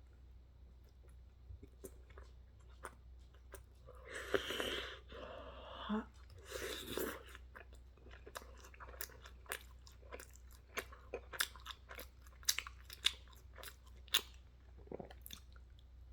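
Close-up mouth sounds of someone eating pizza and salad with ranch. There are two short slurps about four and six and a half seconds in, then loud wet chewing with rapid crunchy clicks and smacks.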